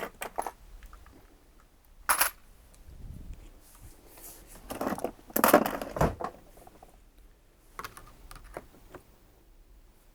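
Small hard objects clicking, clattering and knocking as they are handled and put away: a sharp knock at the start, another about two seconds in, a busier stretch of rattling and knocks around the middle, then scattered light ticks.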